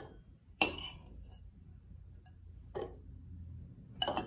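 Metal spoon and stainless steel canning funnel clinking against a glass pint jar as chicken pieces are spooned in. There is one sharp, ringing clink about half a second in, a softer knock near three seconds, and a few quick clinks near the end.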